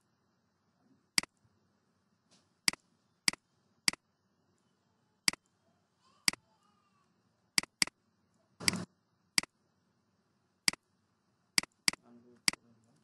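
Computer mouse clicking: about a dozen sharp, separate clicks spread unevenly, roughly one a second with a few in quick pairs.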